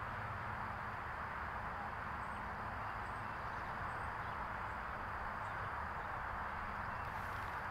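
Steady outdoor background hiss, with a few faint, short, high chirps in the first half.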